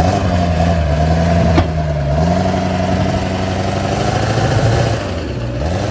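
Mud truck's engine running hard under throttle while driven on a broken front axle; the revs climb a little about two seconds in and drop back near the end. A single sharp knock sounds about a second and a half in.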